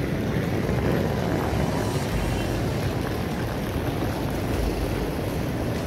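Wind buffeting a handheld phone's microphone while walking outdoors: a steady low rumble that swells in gusts.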